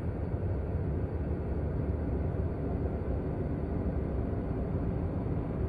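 Deep, steady rumbling drone: a space sound effect standing for the sound of the planet Neptune.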